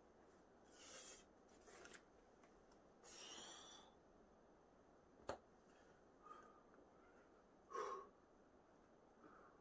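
Faint, sharp exhalations of a boulderer pulling hard moves on an overhang, with one sharp tap of hand or shoe on rock about five seconds in and a short grunt near the end.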